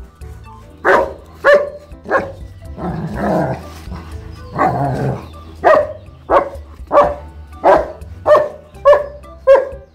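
German shepherd barking in loud, sharp barks. It gives two barks, then two longer, rougher sounds, then a steady run of seven barks about two-thirds of a second apart: excited play barking.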